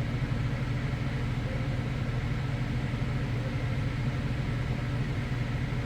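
Steady low mechanical hum with an even fan-like rush, unchanging throughout.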